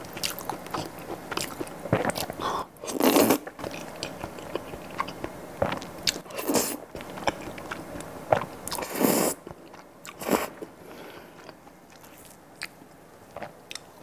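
Close-miked eating of creamy pasta: wet slurps of noodles, several of them lasting about half a second to a second each, between steady chewing with small wet mouth clicks.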